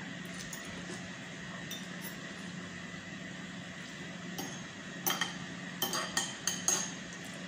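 Metal fork and spoon clinking against ceramic bowls and plate while eating: a few light isolated clicks, then a quick run of about five clinks in the last couple of seconds, over a steady faint hum.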